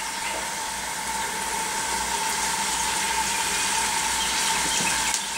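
Potato wedges in a wire fry basket going into cooking oil heated to about 325 °F, the oil sizzling and crackling with a steady hiss that slowly builds. A thin steady tone runs underneath.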